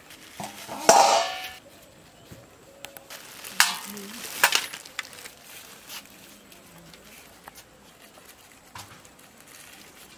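A steel plate clattering and a plastic bag rustling in a few short bursts, the loudest about a second in and two more sharp ones around four seconds in, then only faint handling clicks.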